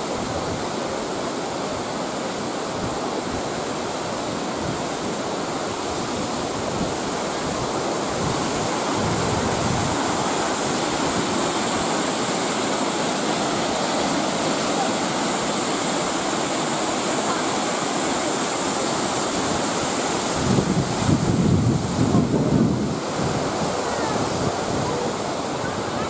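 Steady rushing of Shirahige Falls, many streams of water pouring down a rock face into the river below. About twenty seconds in, wind buffets the microphone with a few seconds of low rumbling gusts.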